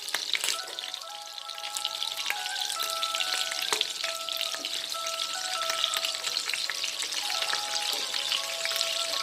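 Breaded chicken nuggets shallow-frying in hot oil over a raised flame: a steady sizzle full of small crackles, the oil bubbling hard as the crust crisps. A soft background melody plays along.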